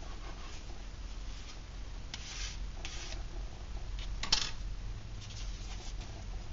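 A knife cutting through a large baked chocolate chip muffin on a paper plate, then the pieces being handled and pulled apart: a few soft scraping, rubbing strokes and one sharper scrape a little past the middle.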